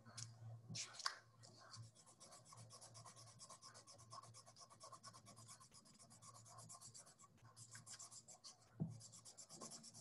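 Faint, quick scratchy rubbing of yarn being wound around a cardboard template, a fast even run of soft strokes that pauses briefly near the end.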